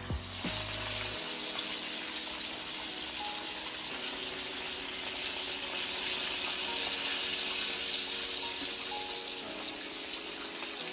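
Chicken thighs frying in hot oil in a wok, a steady sizzle throughout.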